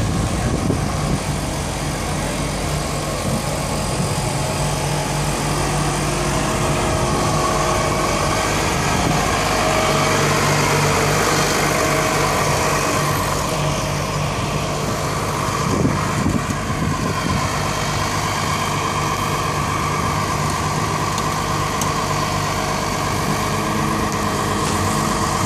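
Fire truck engine idling, a steady low hum.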